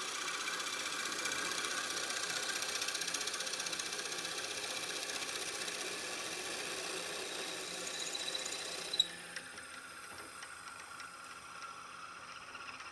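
A wood lathe spins a walnut blank while a twist drill bit held in the tailstock bores into the end grain: a steady cutting hiss with a faint whine. About nine seconds in a sharp click comes and the sound drops to the quieter running of the lathe.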